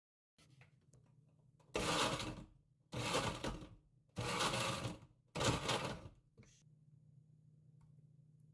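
Blender run in four short pulses of about a second each, a little over a second apart, blending banana and soy milk into a smoothie. A faint steady low hum sits underneath.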